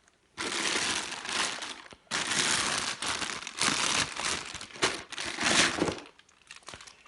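Packaging crinkling and rustling as a new power supply is unwrapped from its box: two long stretches of handling, the second running until about six seconds in, then fainter rustling.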